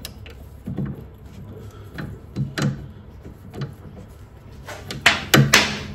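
Socket ratchet working a nut on a stabilizer bar link, with scattered metal clicks and clunks and a louder scraping clatter near the end. The metric socket fits the nut poorly, a sign that the fastener is really an SAE size.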